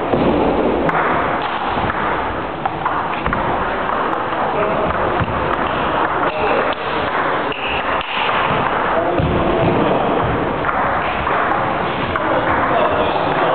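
Table tennis rally: the ball knocking off the rubber paddles and bouncing on the table in short, repeated clicks, over a steady background din.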